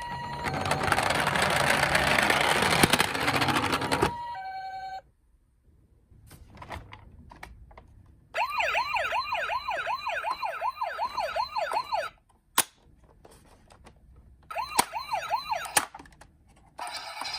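Electronic siren sounds of toy ambulance and police minicars. A loud rushing noise runs for about the first four seconds; from about eight seconds a fast, repeating warbling siren sounds for about four seconds, and it comes back briefly near fifteen seconds.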